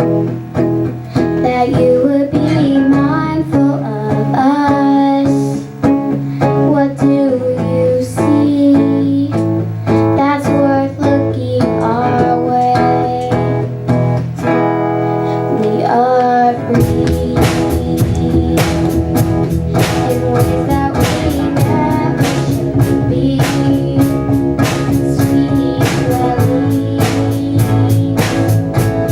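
Band music: guitar with singing, and a drum kit coming in with a steady beat a little over halfway through.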